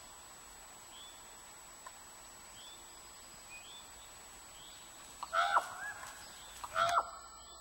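Wolfdogs yelping in two short high-pitched bursts, the first a little past halfway and the second near the end, over faint short chirps that repeat about once a second.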